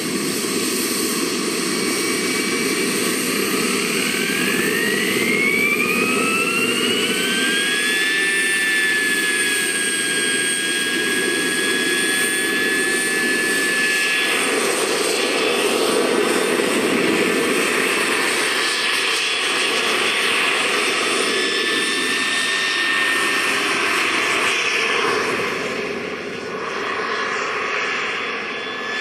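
Jet turbine of a scale Hughes 500E radio-controlled model helicopter running with its rotor noise. A high whine rises between about four and eight seconds in, then holds steady as the model lifts off and flies. The sound dips a little near the end.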